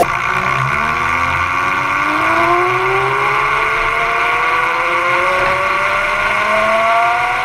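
Electric go-kart drive, a car alternator used as the motor turning a roller chain onto a 3D-printed sprocket, whining as the kart gains speed. Several tones rise slowly and steadily in pitch.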